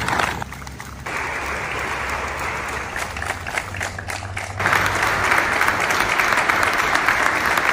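A large group of people applauding, a dense crowd of clapping hands. It dips briefly just after the start and steps louder about four and a half seconds in.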